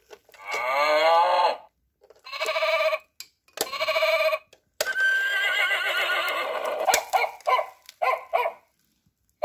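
Recorded farm animal calls: three wavering calls of about a second each, then a longer one of about two seconds, followed by a few short sounds.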